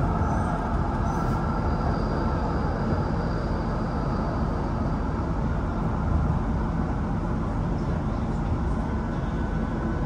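Steady low rumble and noise of a vehicle in motion, with a faint thin high tone for a few seconds starting about two seconds in.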